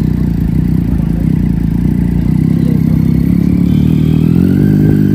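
Superbike engine running at low revs as it rolls slowly in first gear, with a brief rise and fall in revs near the end.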